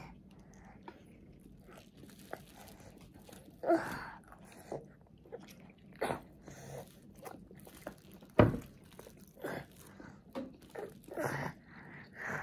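A toddler eating: a metal spoon scraping and clicking against a plate as he scoops rice and minced meat, with small chewing and mouth sounds. There is a sharp knock about eight seconds in.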